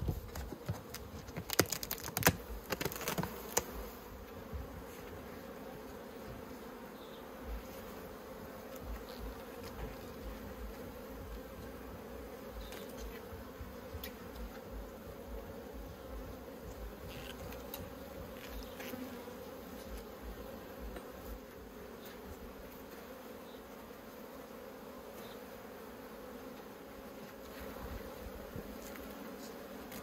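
Honeybee colony buzzing in a steady hum from an opened hive. A few sharp knocks and scrapes in the first few seconds come from the hive being opened.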